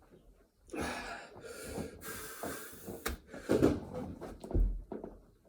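A man breathing hard and wheezing from exhaustion between burpee reps, with a series of heavy, noisy breaths and a low thump near the end.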